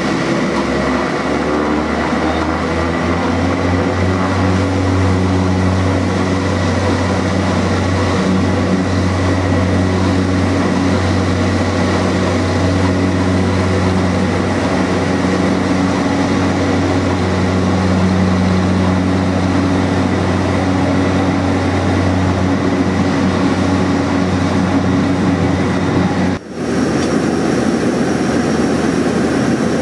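Turboprop engine and propeller of a Coast Guard HC-144 Ocean Sentry at takeoff power during the takeoff roll: a loud, steady drone with a low propeller hum under it. Near the end the sound drops out for a moment, then a steady engine drone carries on.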